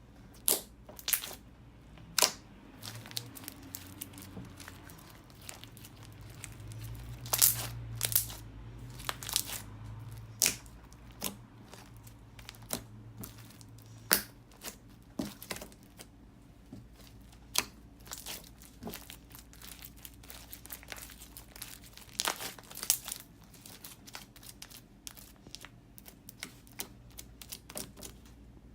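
Hands squishing and stretching slime with bread mixed into it, giving irregular sticky clicks and crackles, a few of them sharper.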